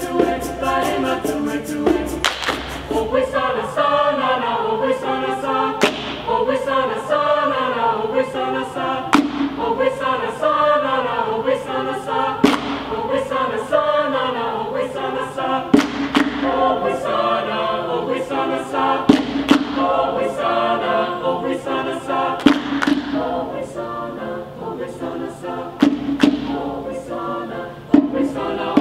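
Mixed choir singing in parts, accompanied by a hand drum: a heavy drum stroke about every three seconds with lighter taps in between.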